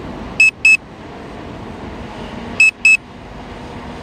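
Drone remote controller beeping an alert while the drone is in return-to-home mode: pairs of short, high beeps about every two seconds, over a steady background hiss.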